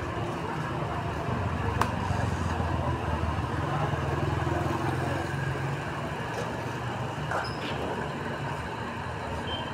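Steady street traffic noise, a low engine rumble that swells in the middle, with a single sharp click about two seconds in.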